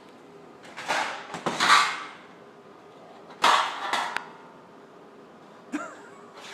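Sheet metal clattering and banging in two short bursts, the first about a second in and the second about three and a half seconds in, with a small click near the end.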